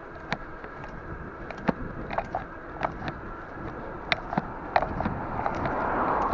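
A bicycle rolling along a sealed road, with steady wind and tyre noise and irregular sharp clicks and rattles from the bike over the road surface. Near the end a car's noise swells as it passes close by, then drops away.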